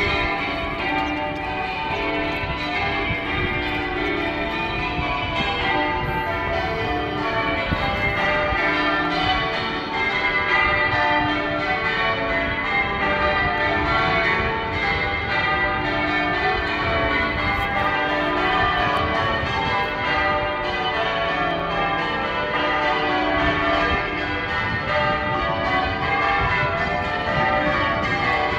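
Manchester Cathedral's church bells ringing changes: many bells struck one after another in a steady, unbroken stream.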